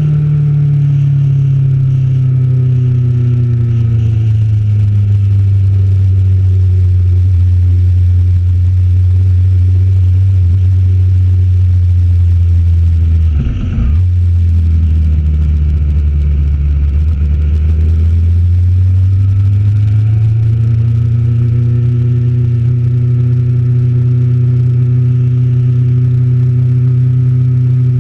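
Motorcycle engine heard from on the bike, its note falling slowly as it slows down, with a brief break in the sound about halfway through. It then rises as the bike accelerates and holds a steady cruising pitch.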